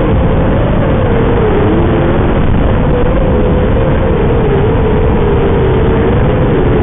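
Mini quad racing drone's electric motors whining under a heavy rush of noise, the pitch wavering up and down a little as the throttle changes.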